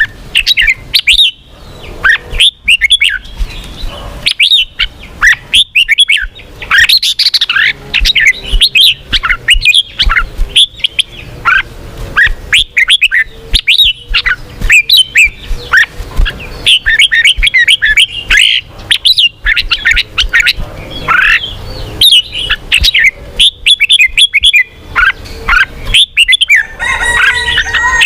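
Red-whiskered bulbul singing: quick, lively phrases of short chirping notes following one after another with barely a pause.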